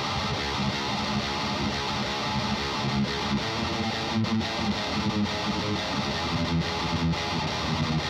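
Distorted electric guitar riff played through a Grim 3 overdrive pedal into a Mesa Boogie Rectoverb 50 tube amp, with choppy, rhythmic low notes.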